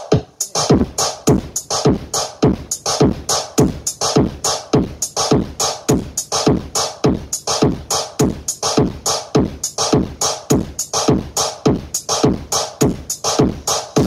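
Electronic dance music played loud through a large stacked sound system of horn-loaded speaker cabinets. A drum-machine beat hits about twice a second, each kick sweeping steeply down in pitch, with ticking hi-hats on top.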